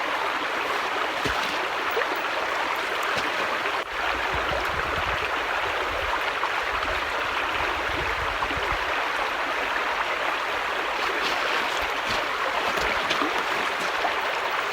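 Creek water rushing steadily over rocks, with a low rumble underneath for a few seconds in the middle.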